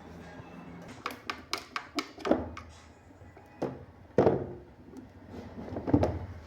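Clicks, taps and knocks of an electric fan's parts being handled and taken apart: a quick run of sharp taps in the first half, then a few heavier knocks.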